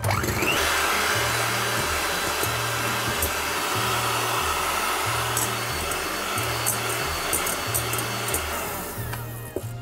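Electric hand mixer running steadily, its beaters whipping egg whites stiff in a glass bowl; its pitch rises right at the start.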